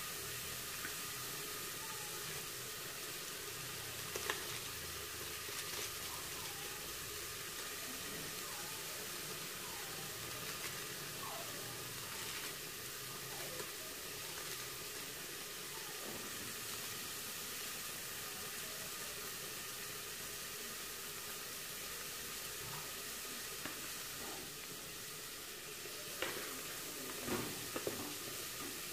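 Steady sizzling hiss of food cooking in pots on a gas stove. There is a sharp click about four seconds in, and a few metal knocks near the end as the pots and lids are handled.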